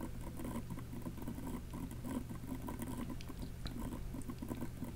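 Faint computer keyboard typing: quick, irregular light key clicks over a low steady hum.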